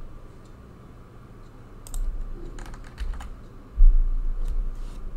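Computer keyboard keys clicking a few times, around two and three seconds in, followed by heavy low thuds that are the loudest part, near the end.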